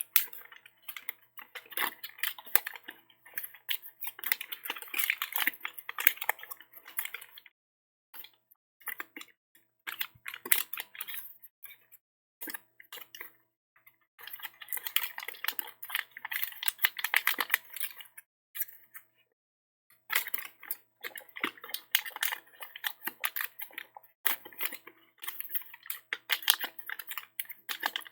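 Origami paper being folded and creased by hand: crackling rustles and sharp clicks in clusters, broken by a few short silences.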